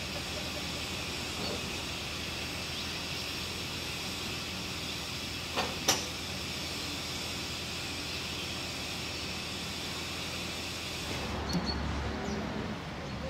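Steady hiss of steam from a standing steam locomotive, with one sharp knock about six seconds in. Near the end the hiss drops away and a low rumble with a few light knocks takes over.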